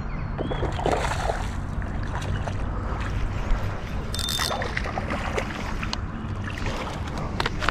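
Steady wind and handling rumble on the camera as a hooked fish is reeled in on a spinning rod, with a short splash at the surface about four seconds in.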